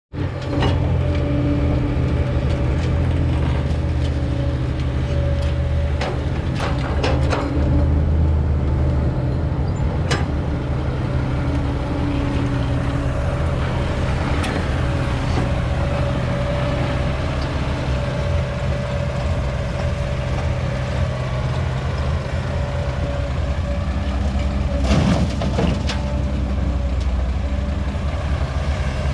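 Old Caterpillar excavator's diesel engine running steadily with a constant hydraulic whine, as it digs and loads soil into a dump truck. A few short knocks and clanks break in, the sharpest a little before the end.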